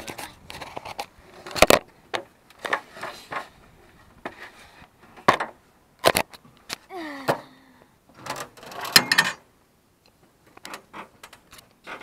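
Handling noise from a camera being gripped and moved: irregular knocks, clicks and rubbing right on the microphone, with a short falling pitched sound about seven seconds in.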